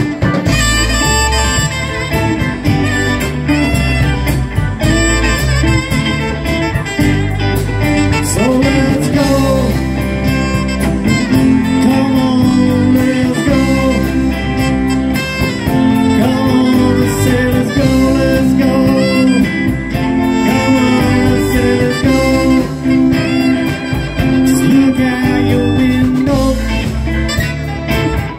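Live band playing a bluesy groove: electric and acoustic guitars, keyboard and drums together, with a melodic lead line running over them from about eight seconds in.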